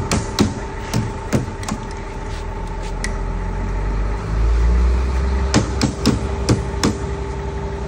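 Metal clips and edge strips of a steel-edged plywood shipping crate being pried loose: a series of sharp metallic clacks, a low rumble about halfway through, then another run of clacks. A steady mechanical hum runs underneath.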